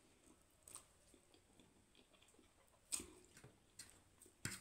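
Faint mukbang eating sounds: chewing of spicy instant noodles, with a few sharp clicks and taps, the loudest about three seconds in and another near the end.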